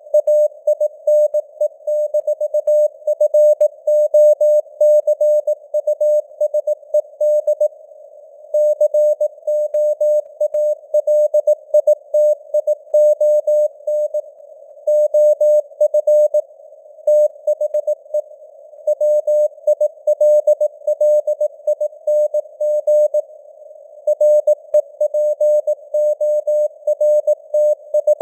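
Morse code (CW) news text sent at 18 words per minute as a keyed tone of one steady pitch, dots and dashes with short breaks between words, over narrow-band hiss of simulated radio noise. The signal strength drifts up and down with simulated fading (QSB).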